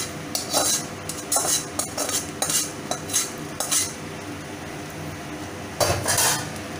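Spatula scraping and knocking against a metal pan as spiced potato masala is scraped out into a pot of rice. A run of short scrapes comes in the first four seconds, then a pause, then a longer, louder scrape near the end, over a faint steady hum.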